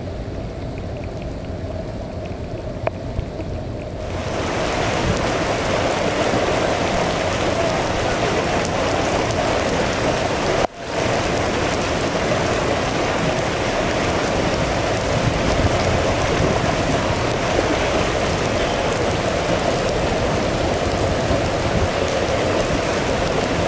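Heavy rain pouring steadily, a dense even hiss. About four seconds in it grows much louder and brighter, and it cuts out for an instant near the middle.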